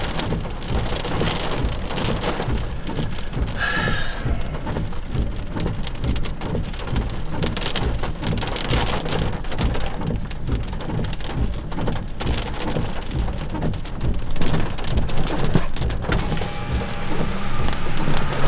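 Heavy rain pelting down in a gusty thunderstorm wind, the gusts buffeting the microphone with a steady low rumble.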